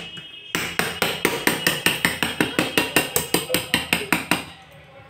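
Hands tapping rapidly on the bottom of an upturned metal cake tin sitting on a steel plate, about five ringing taps a second, to loosen the cake so it drops out. The tapping starts about half a second in and stops a little before the end.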